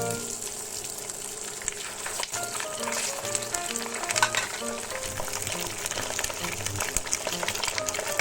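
Gourami fish frying, with a steady sizzle and many small crackles and pops of hot fat, over background music.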